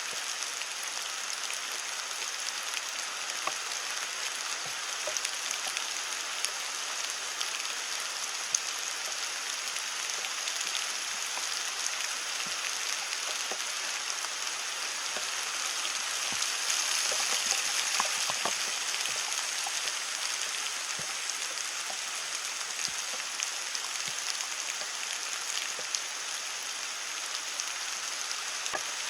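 Heavy rain falling steadily on leaves, a dense even hiss with many separate drops clicking sharply on top, swelling slightly just past the middle.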